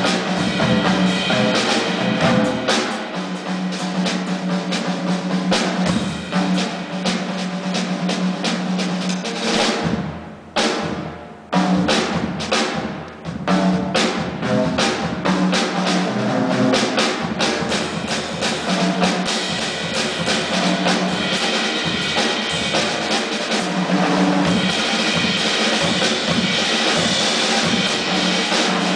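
Drum kit played as a solo feature, with rolls and fills on snare and bass drum. The playing drops away briefly about ten seconds in, then picks back up.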